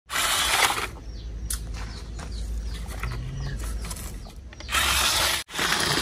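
Mechanical clicking and rattling from a plastic toy vehicle's mechanism, with a loud noisy burst in the first second and another near the end, then cutting off abruptly.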